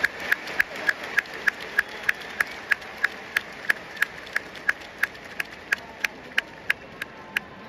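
Steady rhythmic clapping close by, about three claps a second, over a low stadium crowd murmur; the claps grow weaker and stop near the end.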